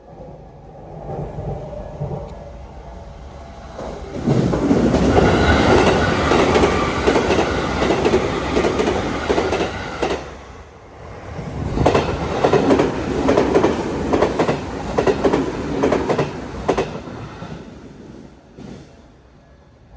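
Electric commuter train on the Tokyu Meguro Line passing at high speed over a level crossing, its wheels clacking rapidly over the rail joints. The sound builds as the train approaches and is loud for several seconds. It dips briefly about halfway, rises loud again, then fades away near the end.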